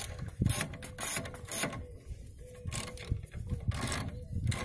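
Ratchet spanners clicking in short runs as two M8 bolts are wound into the threaded holes of a rear brake disc, jacking the stuck disc off the hub.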